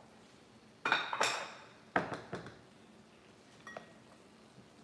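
Stainless-steel pot and kitchen utensils clinking and clattering as they are handled and set down at the sink: a sharp pair of clanks about a second in, another at two seconds, and a faint clink near the end.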